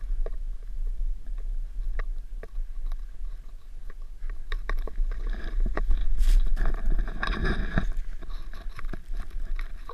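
Snow crunching and scraping right at an action camera's microphone, over a steady low wind rumble on the microphone; the crunching gets louder and denser about six to eight seconds in.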